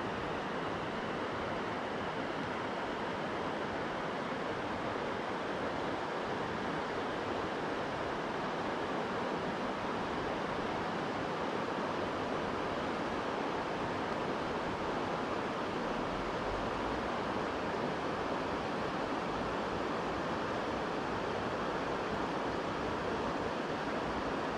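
Steady rush of flowing river water, an even hiss that holds at one level throughout.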